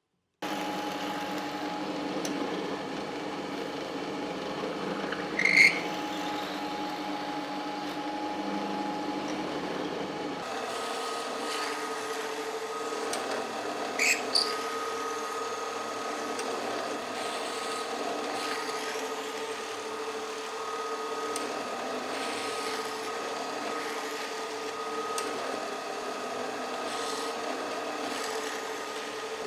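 A power tool's motor runs steadily in a workshop, its pitch shifting to a new steady note about a third of the way in. Two sharp knocks stand out, one about a fifth of the way in and one near the middle.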